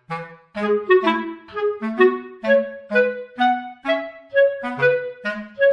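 Background music: a light tune of short, separate notes over a bass line moving in a steady beat, with a new note about every half second.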